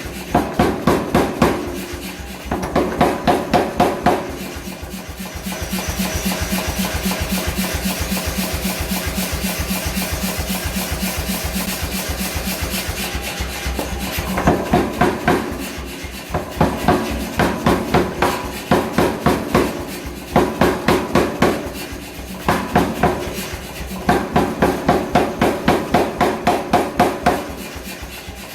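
Hammer blows forging hot wrought iron on an anvil, in bursts of about five blows a second with short pauses, and a longer stretch of steady, faster hammering in the middle.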